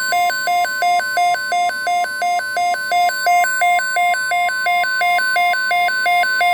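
NOAA Weather Radio's steady 1050 Hz warning alarm tone, with a fast two-note warbling beep of about three high-low cycles a second laid over it, signalling a tornado watch alert.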